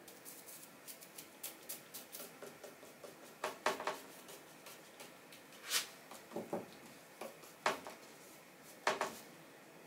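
Light, irregular clicks and knocks of small hard objects being handled and set down, with a few louder knocks in the second half.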